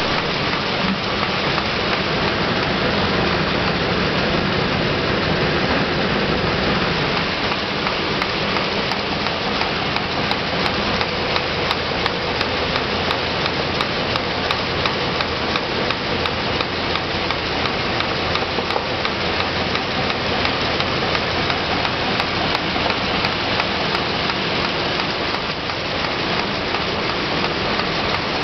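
Film packaging envelope pasting machine running: a steady, dense mechanical rattle of many rapid fine ticks.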